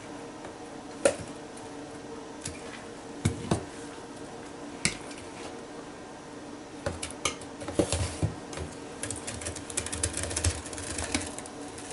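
Knocks and clatter of a steel pot and a plastic container handled on a kitchen counter while thick idli batter is moved between them: single knocks about a second, three seconds and five seconds in, then from about seven seconds a dense run of tapping and scraping as the steel pot is tipped and scraped out into the plastic tub. A faint steady hum lies underneath.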